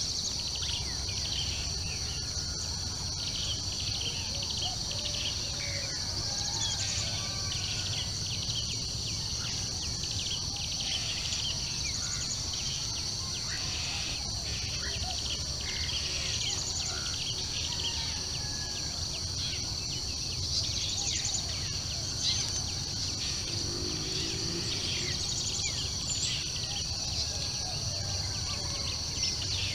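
Dawn chorus: a steady, high-pitched insect drone runs without a break under many short bird chirps and calls, with a low background rumble.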